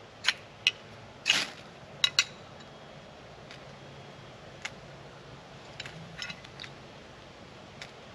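Ferro rod struck with a scraper to throw sparks onto tinder: a quick run of sharp metallic scrapes in the first two seconds, one of them drawn out a little longer, then a few fainter strikes later.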